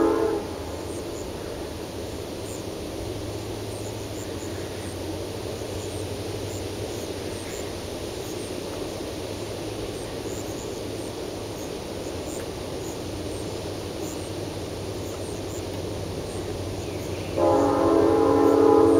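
A train horn sounding a chord of several tones, which cuts off just after the start, then the steady low rumble of the passing train, and the horn sounding again for about two seconds near the end.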